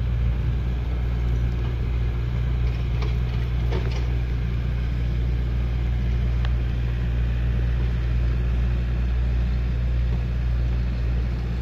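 Excavator's diesel engine running steadily at a low, even hum, with a few faint clicks or clanks partway through.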